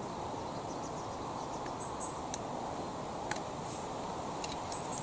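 Steady outdoor background hiss with a few faint high chirps and a handful of small, sharp clicks and taps as skegs are fitted to the underside of an inflatable kayak. The sharpest click comes a little past three seconds in.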